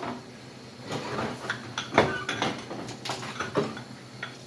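Dishes and cutlery being hand-washed in a kitchen sink: a run of separate clinks and knocks, some ringing briefly.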